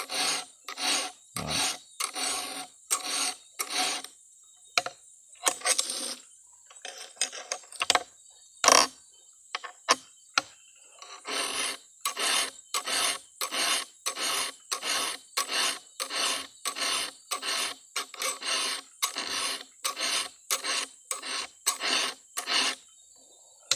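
Round chainsaw file rasping across the cutter teeth of a Stihl 070 chain, hand-sharpening it with regular forward strokes at about two a second. There is a pause of several seconds in the middle with only a few scattered strokes before the steady filing resumes.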